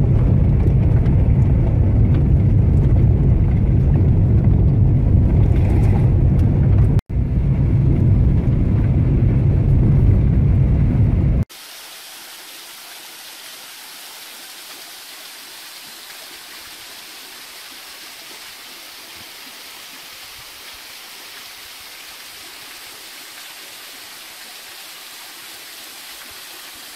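Car driving down a gravel logging road, heard from inside the cabin: a loud, steady low rumble of tyres and engine, briefly cut off about seven seconds in. About eleven seconds in it cuts abruptly to the quieter, steady rushing of a waterfall pouring into a pool.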